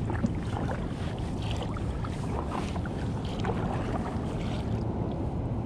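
Kayak paddle strokes: water splashing and dripping off the paddle blades, over steady wind noise on the microphone.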